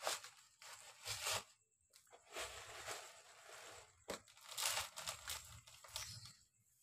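Cats eating dry kibble from a steel bowl: crunching and kibble rattling against the metal in irregular bursts, with a sharp click about four seconds in.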